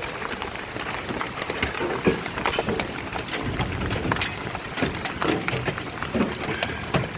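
Hail falling and striking hard surfaces: a dense, irregular patter of sharp clicks and knocks over a steady hiss.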